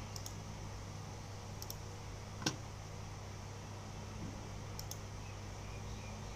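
Room tone: a steady low hum with one sharp click about two and a half seconds in and a few faint, high, paired ticks.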